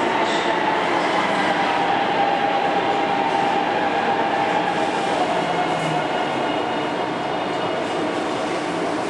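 Taipei Metro C321 electric train running, heard onboard: continuous rolling noise with the whine of its traction motors and inverter gliding slowly down in pitch as the train slows.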